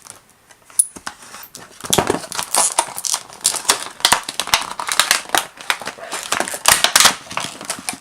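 Plastic packaging crinkling and clicking as a multi-tool is worked out of its pack, quick and irregular, starting about two seconds in.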